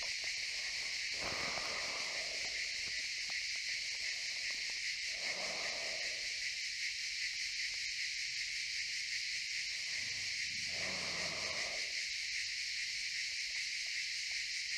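Steady, unbroken chorus of cicadas, a high-pitched drone that does not let up.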